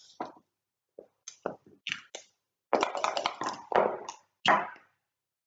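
Backgammon checkers clicked down on the board one after another, then dice rattling for about a second and a half and thrown, landing with a sharp knock near the end.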